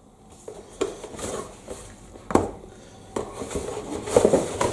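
Handling noise from unboxing microphone accessories: a series of sharp clicks and knocks as hard plastic and metal parts are picked up and set down, with rustling in between.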